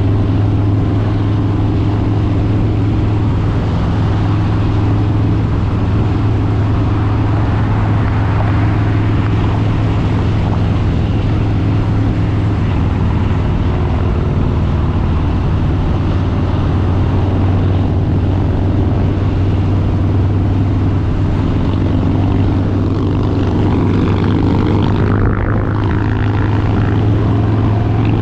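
Harley-Davidson Street Bob 114's Milwaukee-Eight 114 V-twin running at a steady cruise, its pitch and loudness holding even.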